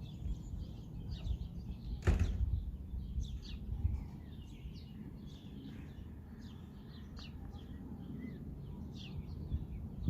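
Small birds chirping, many quick high calls over a low rumble, with a single sharp knock about two seconds in.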